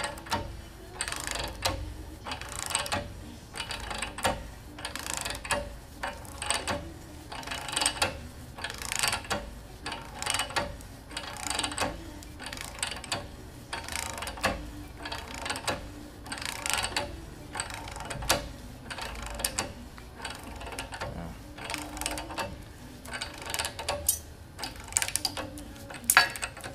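Ratchet wrench clicking in repeated strokes, a burst roughly every second, as it turns a jacking screw that draws the ram out of a hydraulic steering cylinder.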